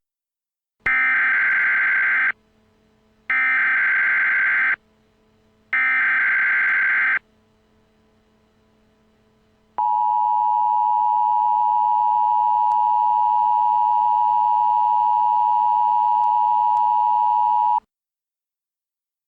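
Emergency Alert System alert: three bursts of SAME header data tones, each about a second and a half long with about a second between them, then the EAS two-tone attention signal (853 and 960 Hz together), held steady for about eight seconds before cutting off abruptly. This is the opening of a National Periodic Test.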